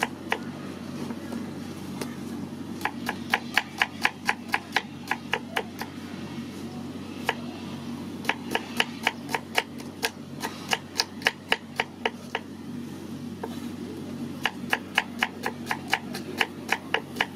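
Kitchen knife slicing shallots on a wooden chopping board: quick knocks of the blade on the wood, about five strokes a second, in runs of a few seconds with short pauses between them.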